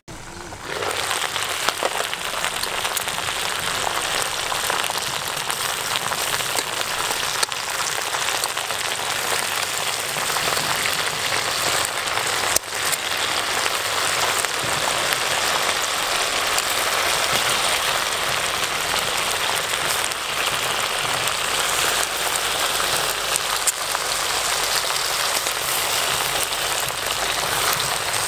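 Steady sizzling hiss of meat cooking in a pot over a wood fire, with a few sharp clicks as metal tongs turn the pieces against the pot.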